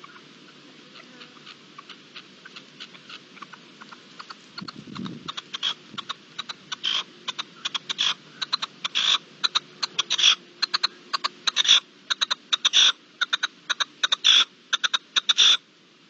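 Red-legged partridge calling: a long run of short, sharp chuck notes that come faster and louder from about four seconds in and stop abruptly near the end. A single low thud about five seconds in.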